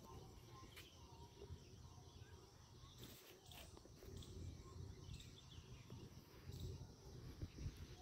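Faint, scattered bird chirps over a low background rumble.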